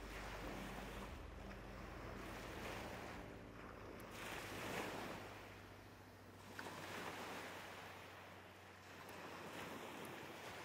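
Small waves washing against the shore, swelling and easing every couple of seconds, with a faint steady low hum underneath.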